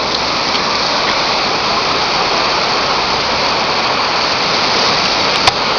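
Fast, swollen floodwater of a river in flash flood rushing past, a loud steady roar of water. A single sharp click about five and a half seconds in.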